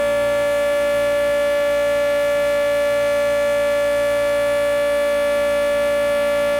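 Federal Signal 2T22 two-tone electromechanical warning siren sounding a steady, loud tone on a test run. It is recorded from very close, so the audio is overblown.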